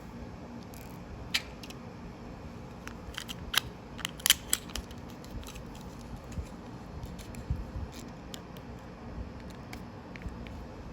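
Irregular light clicks and taps of plastic Lego parts being handled, a cluster of sharper clicks a few seconds in and scattered ones after, over a low steady hum.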